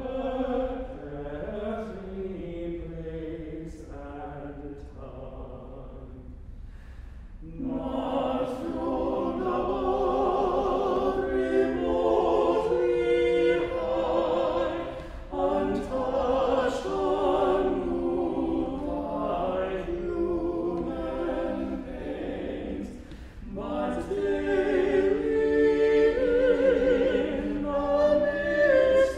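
Small men's vocal ensemble singing unaccompanied in harmony, quieter for the first seven seconds or so, then fuller and louder.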